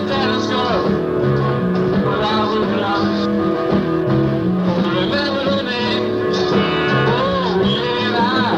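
Live rock band playing: a 12-string guitar, an electric guitar, bass and drums in full swing, with a rough, dull sound from a worn old cassette tape.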